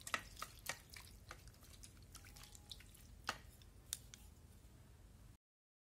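Faint, irregular drips of water, a few a second, with the sharpest about three seconds in. The sound cuts off abruptly near the end.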